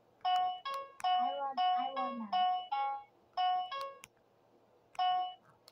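Memory Flash handheld electronic memory game beeping out a run of short electronic tones, each at its own pitch as its coloured button lights, about seven in quick succession with a pause of about a second before the last one.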